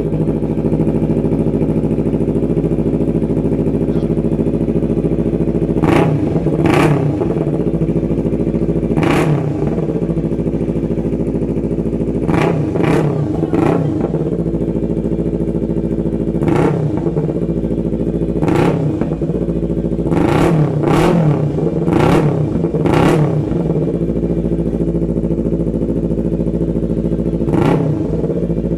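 Yamaha MT-25's parallel-twin engine, fitted with an aftermarket full-system exhaust, idling steadily. It is blipped about a dozen times in short revs, some in quick pairs and threes, to test the exhaust note.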